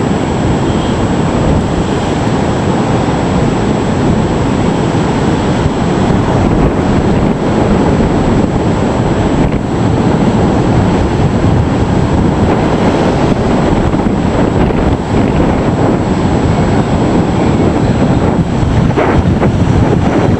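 Loud, continuous storm surf from a hurricane storm surge, waves crashing in heavy seas, with strong wind buffeting the microphone.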